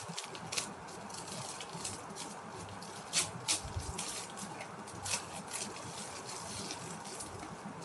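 Clear plastic packaging crinkling and rustling as it is handled and opened, with a few sharper crackles about three seconds in and again about five seconds in.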